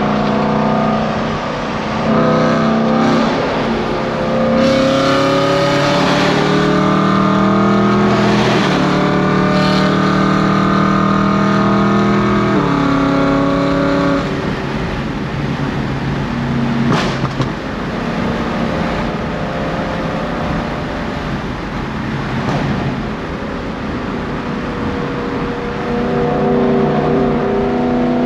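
Straight-piped BMW E92 M3 V8 exhaust, resonators removed, heard from inside the cabin at highway speed. The note climbs steadily under acceleration, drops away about 13 seconds in, holds steady while cruising, and builds again near the end.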